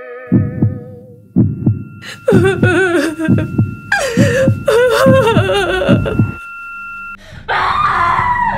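Heartbeat sound effect, low thumps in pairs, that stops about six seconds in. Over it a high steady ringing tone and wavering, wailing voice-like sounds.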